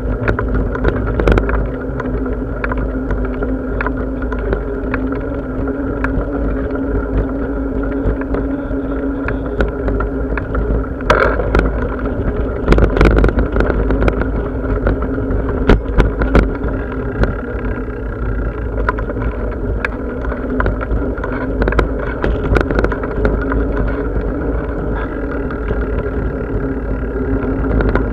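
Bicycle riding along at a steady pace: a continuous low rumble with a steady hum, and frequent small clicks and rattles, which come thicker and louder around the middle.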